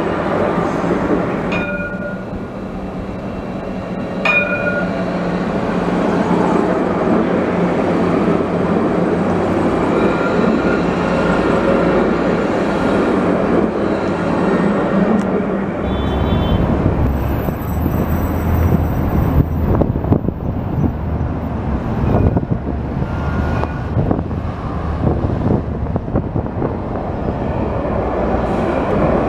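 Alstom Citadis light-rail trams running along street track and passing close by, with rolling wheel-on-rail noise and street sounds around them.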